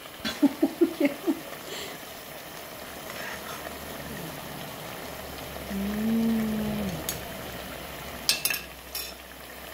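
Corviche (green-plantain fritter) frying in a small pot of hot oil: steady sizzling and bubbling while it is stirred with a metal spoon, with a few sharp clicks of the spoon near the end. A person's voice makes a quick string of short sounds at the start and a held low hum about six seconds in.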